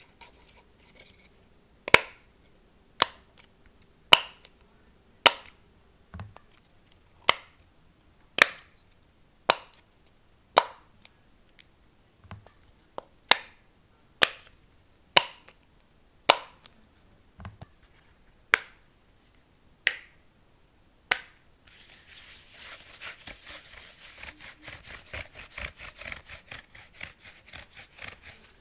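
Silicone pop-it fidget bubbles pressed one at a time, a sharp pop about every second, some softer than others. About 22 seconds in the pops give way to a rapid run of fine clicking.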